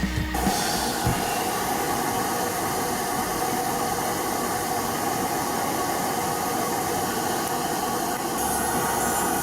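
Podiatry nail drill running steadily on a toenail: a constant whine at one pitch over a hiss, a little fuller near the end.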